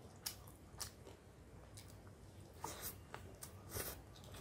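Close-up eating sounds: fingers squishing and mixing rice on a steel plate, and the mouth chewing, with a few short wet smacks, most of them in the second half.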